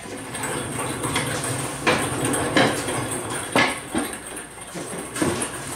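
Caster wheels of dollies rolling across a concrete floor under a vintage Bush Machine 6x6 as it is pushed by hand: a steady rumble broken by about five sharp metal clanks and knocks.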